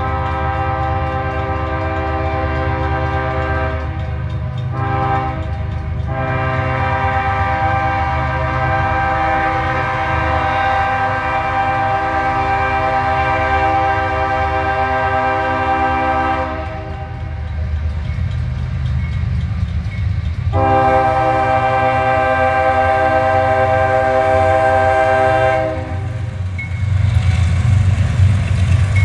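CSX diesel freight locomotive's horn sounding for a grade crossing. A blast already under way ends about four seconds in, then comes a short toot, a long blast of about ten seconds and another of about five seconds. Beneath it runs the low rumble of the diesel locomotives, which grows louder near the end as the lead unit passes.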